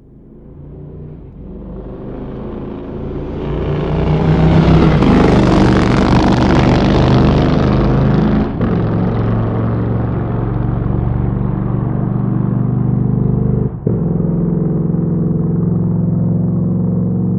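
Motorcycle engine fading in and building to a loud peak about five seconds in, then running steadily at an even pitch. It drops out briefly twice, about eight and a half and fourteen seconds in.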